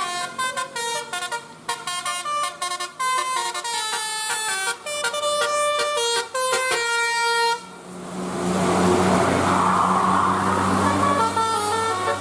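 A multi-trumpet 'telolet basuri' bus horn, nine-note and 18-trumpet, plays a melody of short stepping notes. About eight seconds in, the tune gives way to a louder hiss-like noise over a low steady hum, and the horn notes come back near the end.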